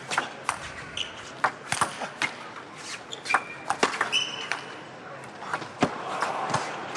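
Table tennis rally: the celluloid ball clicking off the bats and the table in a quick, uneven run of sharp ticks, with a couple of short high shoe squeaks on the court floor a little past the middle.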